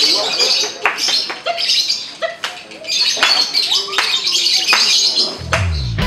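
Caged lovebird chattering in long runs of rapid, high, shrill chirps: the 'ngekek' song that contest lovebirds are judged on. The chirping breaks off briefly about two seconds in. Outro music with a low rising bass comes in near the end.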